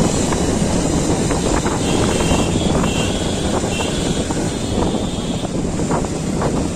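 Wind rushing over the microphone of a moving motorcycle, with its engine running steadily underneath. A faint high tone comes and goes about two to five seconds in.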